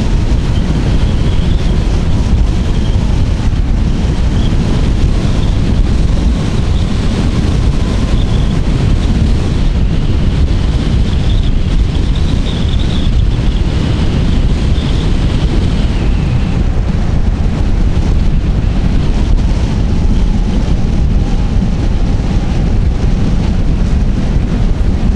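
Wind buffeting the microphone, a loud steady rumble, with a faint high whine from about a second in until about two-thirds of the way through.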